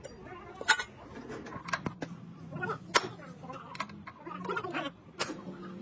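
Sharp metal knocks, four of them a second or so apart, from a hammer striking a heavy planetary gear hub as it is fitted together.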